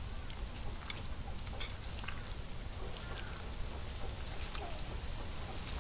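Hands squeezing and turning raw chicken pieces in a clay bowl, working in spices and oil to marinate the meat: a steady wet squishing with many small, quick clicks.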